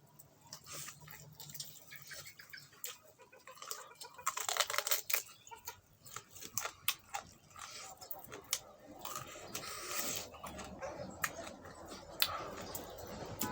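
Close-up mukbang eating sounds: a person chewing fatty pork with wet smacks and irregular sharp lip and mouth clicks, thicker in bursts about four seconds in and again toward the end.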